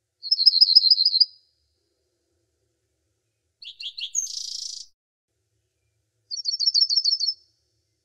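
A songbird singing: a quick, even trill of about eight high notes lasting about a second, then a short phrase of a few notes ending in a buzzy note around four seconds in, then the same quick trill again near the end.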